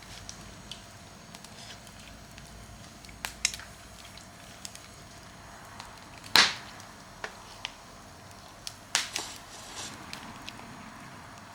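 Wood fire crackling, with scattered sharp pops and one much louder snap about six seconds in.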